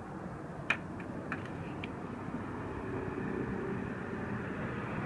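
Outdoor street ambience: a steady low rumble of distant traffic, with a few light knocks in the first two seconds.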